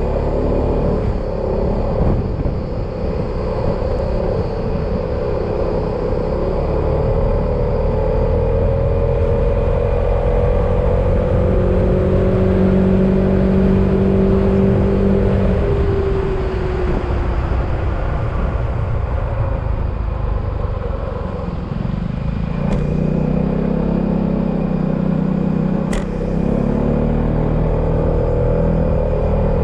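Yamaha XMAX scooter's single-cylinder engine running under way, its pitch climbing slowly, dropping off about halfway through, then climbing again as the rider speeds up and eases off, over steady wind and road rumble. Two short sharp clicks come in the second half.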